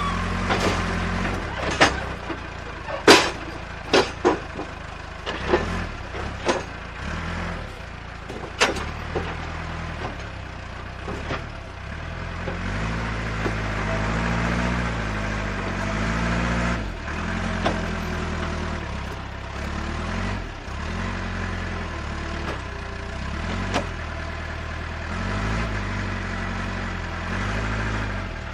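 Radio-controlled construction-model vehicles working: a steady low motor hum that steps up and down, with rising and falling whines in the second half. A run of sharp knocks comes in the first several seconds.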